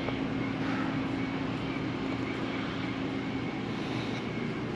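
RV's ducted roof air conditioning running: a steady hum over an even rush of air.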